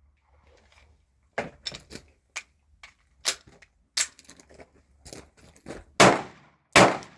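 Canik TP9SA Mod2 9mm pistol firing two loud shots less than a second apart near the end, each ringing out briefly. Several quieter sharp cracks come before them.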